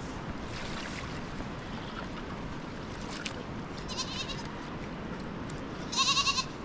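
A goat bleating twice: a short faint bleat about four seconds in and a louder, wavering bleat near the end, over a steady background rush.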